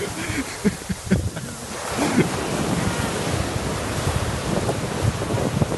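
Small waves breaking and washing up onto a sandy beach, with wind buffeting the microphone. The surf swells louder about two seconds in.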